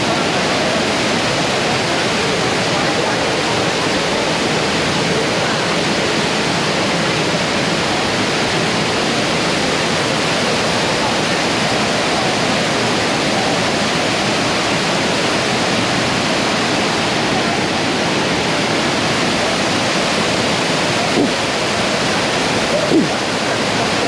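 Waterfall plunging into a rock pool: a steady, even rush of falling water.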